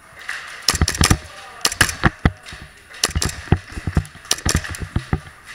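Airsoft gunfire during close-quarters play: irregular sharp cracks and snaps in about four short volleys.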